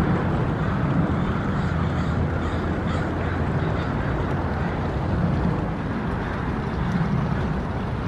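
Steady low rumble of wind, with a few faint bird calls between about one and a half and three seconds in.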